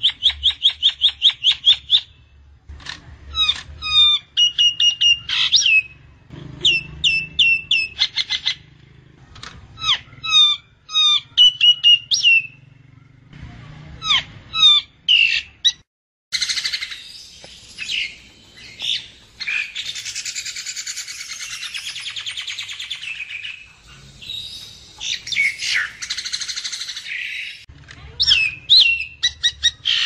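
Common myna calling. It gives bursts of rapid repeated clicking notes and short whistled chirps, then about ten seconds of harsh, dense chattering past the middle, and chirps again near the end.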